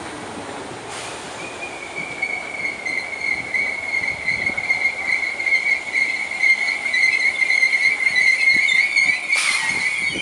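Merseyrail electric train's wheels squealing against the rails as it moves past, one steady high-pitched squeal that begins about a second and a half in and grows louder, over the rumble of the running train. A brief sharp crack near the end.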